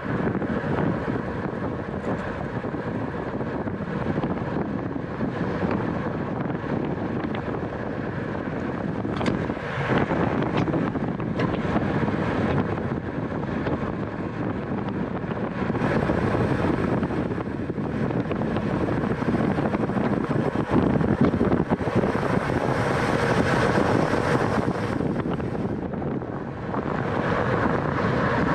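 Steady rush of wind over the microphone while riding at racing speed in a criterium, with road and tyre noise underneath. A few brief knocks come through, and the hiss brightens for several seconds past the middle.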